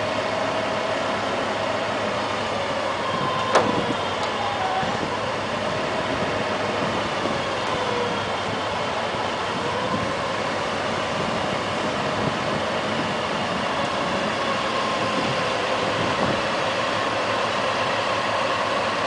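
Engine of a 20,000 lb propane-fuelled forklift running steadily while it holds a heavy load, its note wavering slowly in pitch. A single sharp knock sounds about three and a half seconds in.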